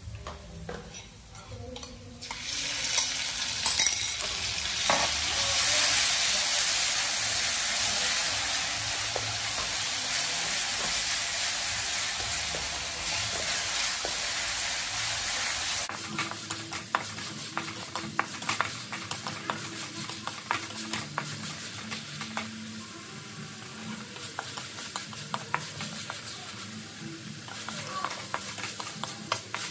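Wooden spatula scraping and tapping a metal wok of frying garlic. About two seconds in, a loud, steady sizzle starts suddenly as sliced meat goes into the hot oil. Later it falls to a quieter sizzle under many quick spatula clicks and scrapes as the meat is stir-fried.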